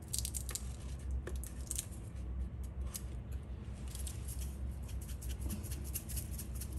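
Disposable glass pepper grinder being twisted, grinding black peppercorns: a run of short, dry clicks, densest in the second half.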